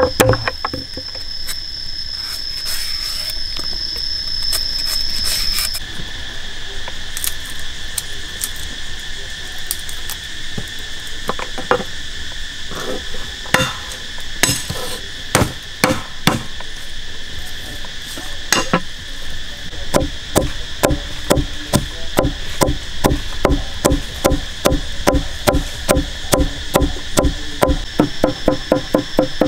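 Cleaver blade chopping garlic against a wooden cutting board: scattered knocks at first, then rapid, regular chopping at about two to three strokes a second from about two-thirds in. Forest insects drone steadily underneath, their pitch changing about a fifth of the way in.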